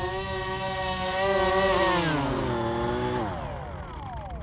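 The XK X520 RC plane's twin electric motors and propellers whining at a steady pitch. About one and a half seconds in the whine slides down in pitch, then drops away and fades near the end as the motors are throttled back and spin down.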